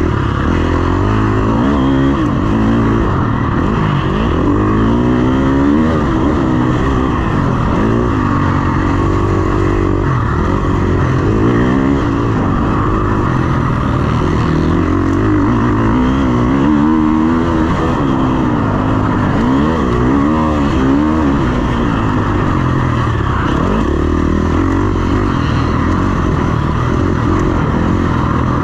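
KTM 350 SX-F's single-cylinder four-stroke motocross engine being ridden hard, revving up and falling back over and over, its pitch rising and dropping every second or two.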